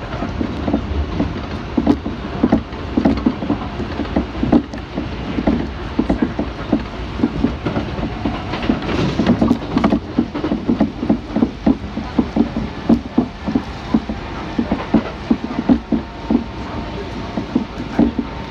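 Kintetsu electric train running, heard from inside the carriage: a steady rumble with many irregular clicks and rattles.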